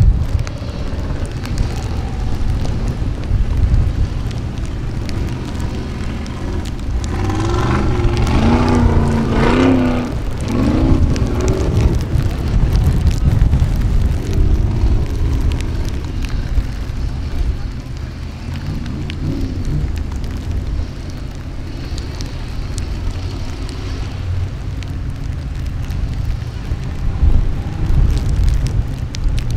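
Wind rumbling on the microphone over the engine of an off-road hill-climb buggy working up a steep dirt slope.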